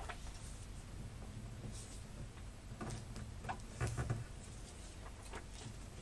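A sheet of paper being fan-folded by hand on a tabletop: soft rustling and creasing, with a few short taps and a low knock against the table about four seconds in.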